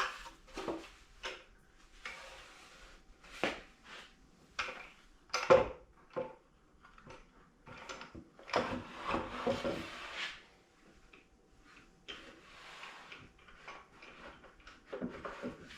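Wooden jig parts handled and fitted onto a lathe bed: scattered knocks and clicks of wood on wood, the sharpest about five and a half seconds in, with stretches of scraping as pieces slide into place.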